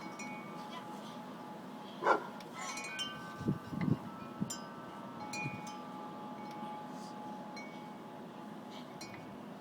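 Wind chimes ringing, several tones struck one after another and ringing on. A brief louder sound comes about two seconds in and a few short low sounds a little later.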